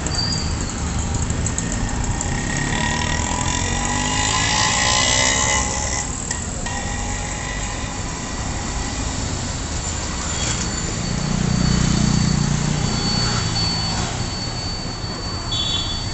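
Continuous road traffic: steady vehicle noise with engines passing, one with a rising and falling engine note a few seconds in and a heavier low rumble swelling past about twelve seconds in. A thin high steady whine runs through the second half.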